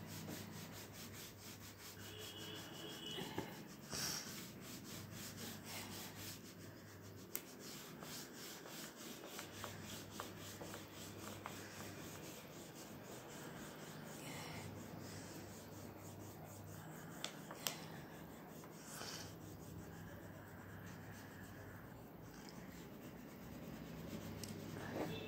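Purple wax crayon rubbing rapidly back and forth over the paper of a colouring book, shading in a large area with quick, even strokes. A few sharp clicks come through now and then.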